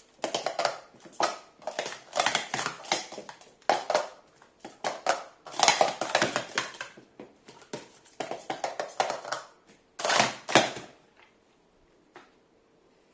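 Plastic sport-stacking cups clattering in quick bursts of clicks as two stackers upstack and downstack them at speed, stopping about eleven seconds in; one faint click follows about a second later.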